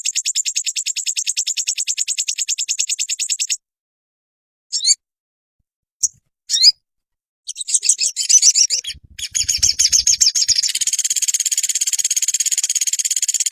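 Recorded song of a sogon, a small songbird: a fast, high, even trill of rapidly repeated notes that stops about three and a half seconds in, then three short rising whistled notes, then a dense trill starting again about halfway through.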